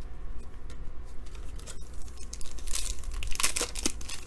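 Foil wrapper of a 2017-18 Panini NBA Hoops trading-card pack crinkling and tearing as it is opened, in crackling bursts over the last second and a half. A couple of faint clicks come before it.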